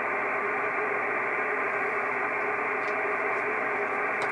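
Steady hiss of 6-metre band noise from a Kenwood TS-680S transceiver receiving on upper sideband at 50.148 MHz, with no station answering the CQ call.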